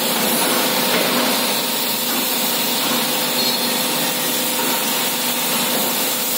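ATS ELGI automatic car washing system running, its rotating brushes scrubbing over a car's body with a steady rushing, rubbing noise and a faint motor hum underneath.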